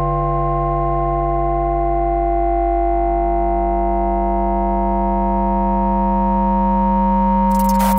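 Demo soundtrack: a held electronic synthesizer chord of steady pure tones over a low drone, moving to a new chord about three seconds in while its top slowly brightens. A rush of noise comes in near the end.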